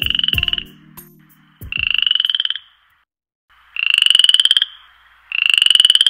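Four short buzzing trills in a row, each about a second long and rising slightly in pitch, with gaps of about a second between them.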